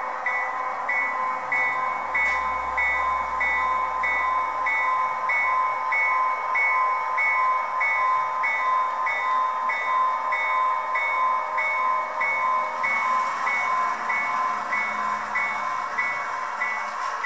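Sound-equipped HO-scale diesel switcher locomotive ringing its bell steadily, about one and a half to two strikes a second, over a continuous hiss of engine sound, as it switches coal hoppers.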